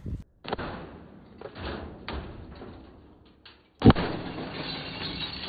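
Microwave oven crashing onto the ground after being thrown off a roof: a loud single impact about four seconds in, followed by more than a second of rattling clatter, with lighter knocks before it.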